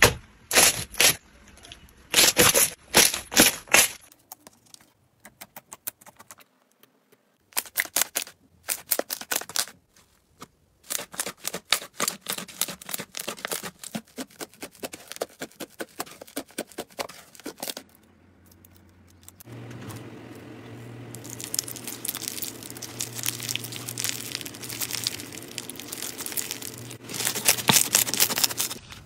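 Slime being pressed, poked and squeezed by hand: quick runs of sharp pops, crackles and sticky tearing as air bubbles in the slime burst. In the second half a low steady hum sits under the popping for several seconds.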